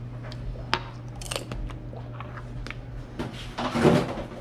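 Household handling noises: a few sharp clicks and knocks in the first three seconds, then a louder rustling scrape about three and a half seconds in, over a steady low hum.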